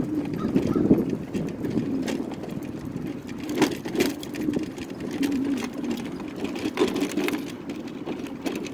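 A ride-on scooter rolling along cracked asphalt: a steady rough rumble with scattered rattles and knocks from the bumps.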